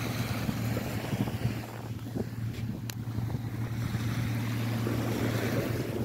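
Wind buffeting the microphone on an open beach, a steady low rumble, with one sharp click about three seconds in.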